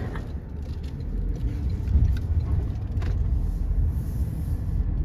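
A car's steady low rumble of engine and road noise, with a few faint clicks.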